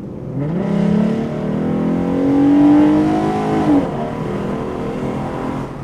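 Car engine accelerating hard, its pitch climbing for about three seconds, then dropping sharply at a gear change and pulling on at a steadier note.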